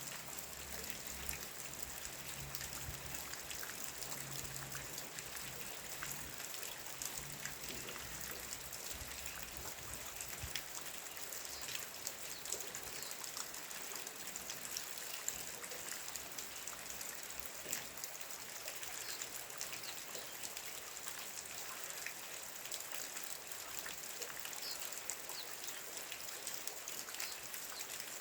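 Steady rain falling, with many small drops ticking on surfaces.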